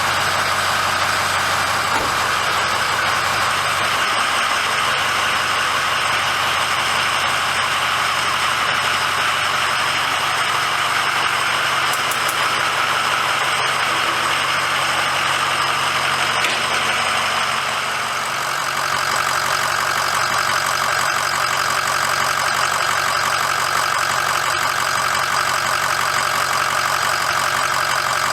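Ford 6.0 L Power Stroke V8 turbodiesel in a 2006 F-350 idling steadily, just started after a fuel filter change and bleeding of air from the fuel system. There is a brief dip in loudness about two-thirds of the way through.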